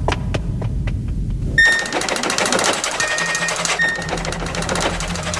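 Sound effect of a computerised medical scanning machine: a few scattered clicks, then about one and a half seconds in a rapid mechanical chatter starts suddenly and keeps going, with short electronic beeps over a low hum.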